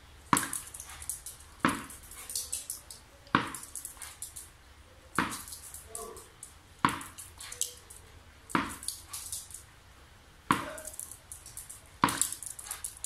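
Tennis ball bounced on a hard floor again and again, a sharp thud about every 1.7 seconds, eight in all, each followed by a short patter of lighter, higher clicks and rustles.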